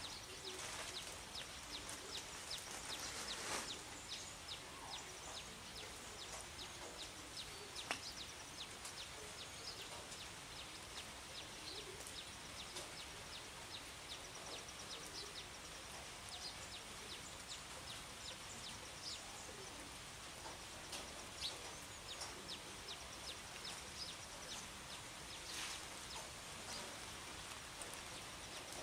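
Light rain falling steadily, with many short bird chirps scattered over it.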